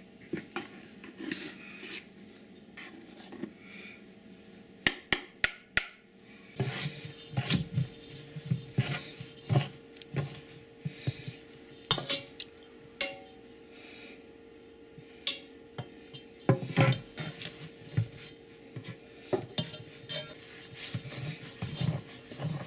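A metal spoon scraping and clinking against a stainless steel mixing bowl, with irregular knocks and scrapes, as flour is worked into riced potato to make lefse dough. Only a few sparse clicks come in the first six seconds, then the scraping gets busy.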